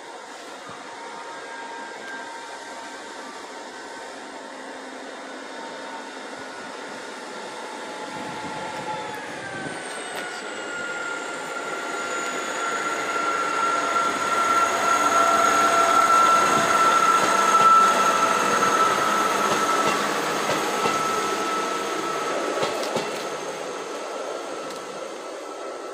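East Midlands Railway Class 158 diesel multiple unit passing through the station. It grows louder to a peak about two-thirds of the way through, then fades as it runs away. A steady high whine drops in pitch about nine seconds in.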